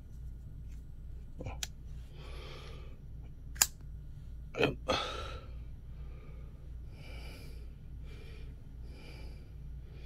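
GVDV folding pocket knife flipped open: a sharp metallic click about three and a half seconds in as the blade snaps out and locks, with a fainter click before it and a rougher handling sound just after. Soft breathing between.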